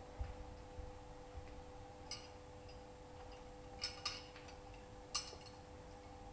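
A few sharp clicks and clinks, about five in all and the loudest about five seconds in, over a steady electrical hum.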